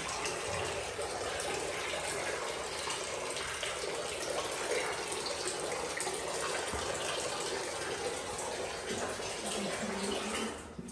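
Steady rush of running water, dropping away briefly near the end.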